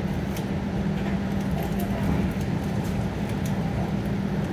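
Steady interior noise of a TTC streetcar: a constant low hum over a low rumble, with a few faint clicks.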